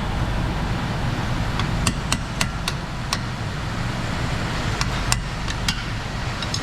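Sharp metal-on-metal taps and clinks from hand tools, about ten of them at irregular intervals, mostly in the middle and later part, over a steady low hum.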